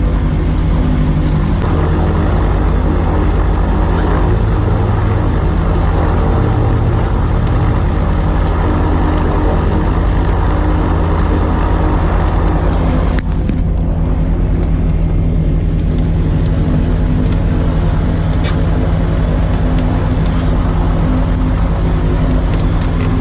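A propeller engine runs loudly and steadily, a continuous drone with rushing noise over it. About halfway through the higher hiss briefly thins out, then returns.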